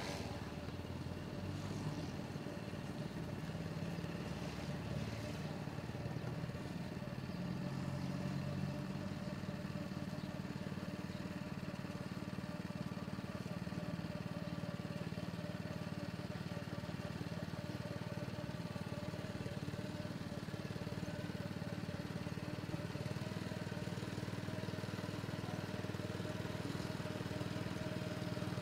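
A small motor running steadily with an even hum, with no change in speed.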